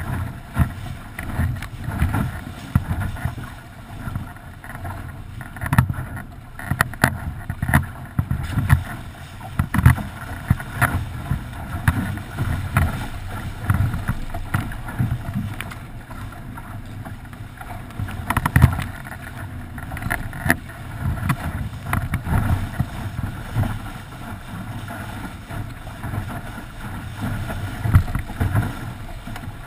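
Water rushing and slapping along the hull of a sailing dinghy moving fast through chop, with wind buffeting the microphone in uneven gusts and a few sharper slaps of the hull against waves.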